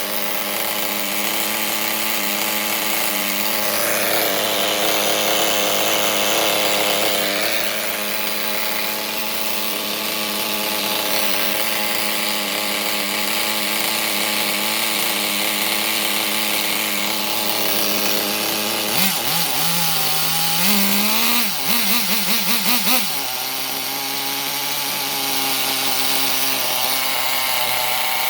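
SH .18 two-stroke nitro engine running through a Losi 3.4 tuned pipe, idling steadily. About 19 seconds in it is blipped several times in quick succession, the pitch rising and falling with each blip, then it settles back to a steady idle.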